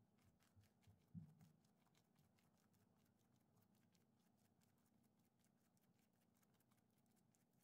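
Near silence, with faint soft pats and taps of hands pressing a square of dough flat on a countertop, and one soft thump about a second in.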